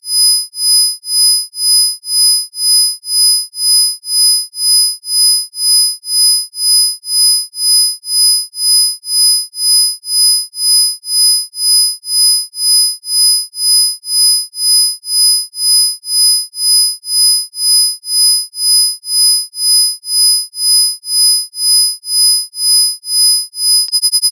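Electronically generated isochronic tones: steady sine tones near 5 kHz and 10 kHz, with fainter higher and lower tones, pulsing on and off about twice a second. Near the end a click marks a switch to a much faster pulse.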